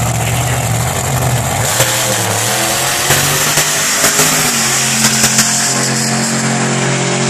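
Wheelstander drag car launching from the starting line, its engine revving up and down with a string of sharp pops as it accelerates away down the drag strip.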